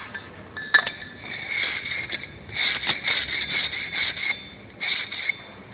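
Electric arc welding: a sharp snap under a second in, then the arc crackling with a steady high whine for about three seconds, and again briefly near the end.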